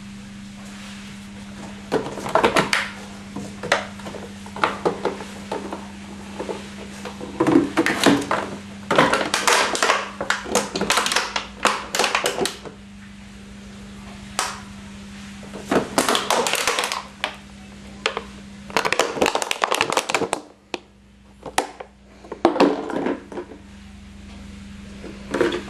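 A dog crushing and chewing a plastic bottle: bouts of sharp crinkling and crackling plastic, each lasting from a moment to a few seconds, with short pauses between.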